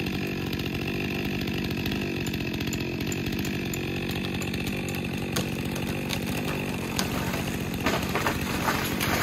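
Chainsaw running steadily at high speed while felling a tree, with a few sharp knocks near the end.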